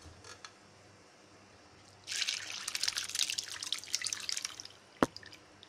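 Curdled milk, chhena curds and whey, poured from a steel pan into a cotton cloth over a container, splashing for about two and a half seconds from about two seconds in: the whey straining off from the curds. A single sharp knock near the end.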